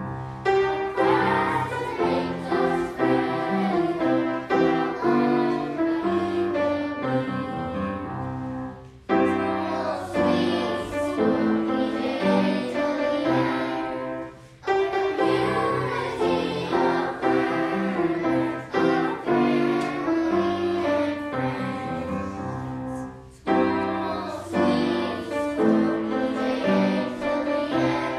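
A choir singing a school song to piano accompaniment, with brief pauses between phrases three times.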